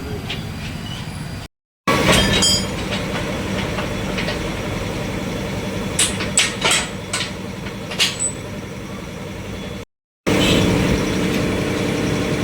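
An engine runs steadily while a tractor tyre is being removed, with about five sharp metallic knocks a little past the middle. The whole sound cuts out briefly twice.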